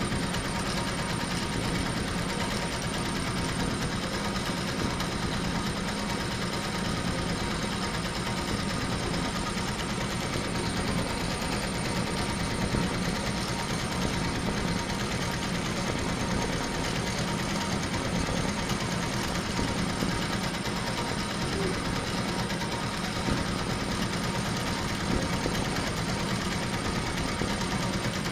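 HSW 12-needle high-speed embroidery machine stitching a design, a steady fast mechanical clatter with a thin high whine.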